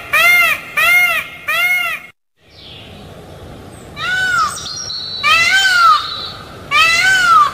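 Peacock calling loudly: three short, quick honking calls, a sudden break of silence, then three longer calls about a second and a half apart.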